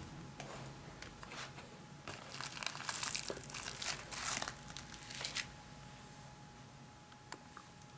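Crinkling of a clear plastic sleeve and the paper instruction sheets inside it as they are handled and lifted out of a model train set's case, loudest for about three seconds in the middle, with a small click near the end.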